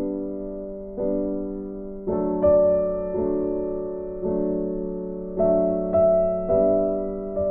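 Background music: slow piano chords, each struck and left to ring, changing roughly once a second.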